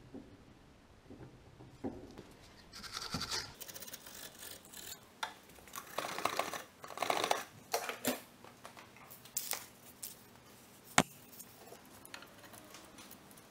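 A rag rubbing and wiping over the front strut and drop link, with small clinks of hand tools being handled and one sharp click about eleven seconds in.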